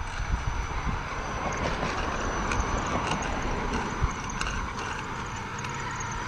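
Losi Rock Rey RC rock racer's electric drivetrain whirring steadily as it rolls slowly over a concrete sidewalk under the load of a small child riding on it, with tyre noise on the pavement and a few light ticks.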